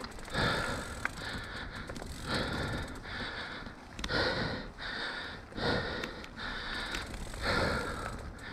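A mountain biker breathing heavily in and out, about a breath a second. Underneath is the steady low rumble of the bike rolling over a dirt trail.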